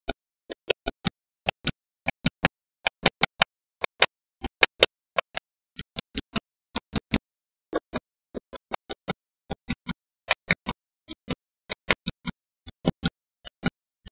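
Small magnetic balls clicking as strips of them are snapped onto a wall. The clicks are sharp and come in quick pairs and threes, with silence between them.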